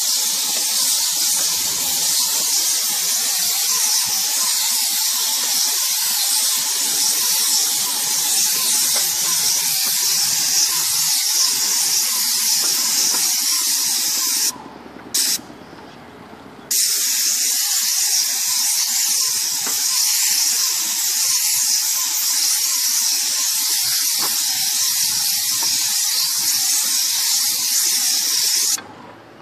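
Paint spray gun on a long extension wand hissing steadily as it sprays roof paint onto the tiles. The hiss stops briefly about halfway through and again near the end.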